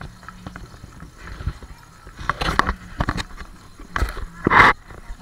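Footsteps of people walking on a street, with scattered knocks and clicks, and one short loud rustle about four and a half seconds in, likely cloth or a strap brushing the carried camera.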